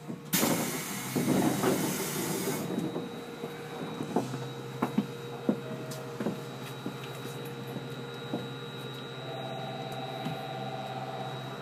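Compressed-air brake hiss in the cab of a JR 811-series electric train, loud for about two and a half seconds as the brake handle is moved. It is followed by a steady low electrical hum with a thin high whine, a few sharp clicks, and a pulsing beep near the end.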